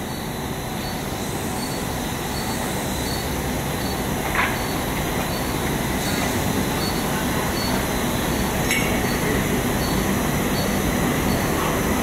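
Cable-factory machinery running: a steady mechanical drone that grows slightly louder, with a faint regular ticking and a couple of light clicks.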